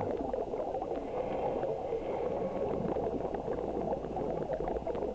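Steady bubbling, crackling underwater noise picked up by a camera in an underwater housing among scuba divers, with many small ticks throughout.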